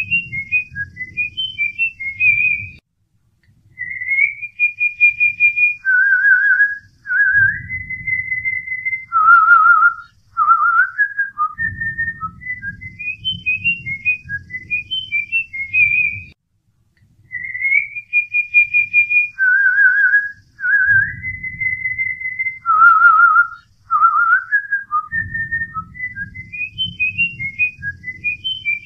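A whistled melody of quick short notes, held notes and wavering trills, the same phrase repeating about every 13 seconds, with a low rumble under parts of it.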